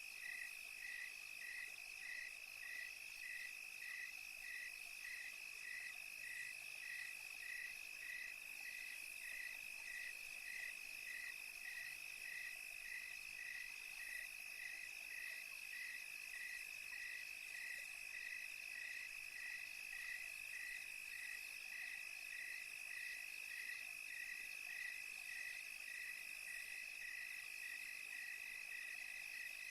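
Crickets chirping in a night chorus: a steady high trill with a regular chirp repeating about twice a second, over a faint hiss of higher insects.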